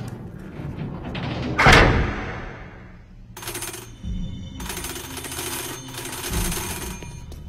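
A loud sudden hit about one and a half seconds in, fading over a second. Then a ship's engine-order telegraph rings its bell in two spells as its lever swings over.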